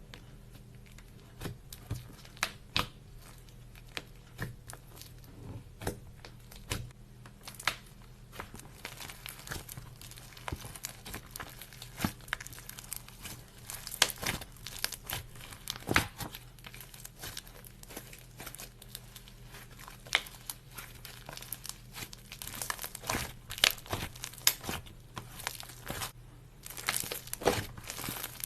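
Clay slime being worked by hand, with crackling, popping clicks as it is stretched, pressed and folded. The clicks come sparsely at first and grow much denser after about eight seconds.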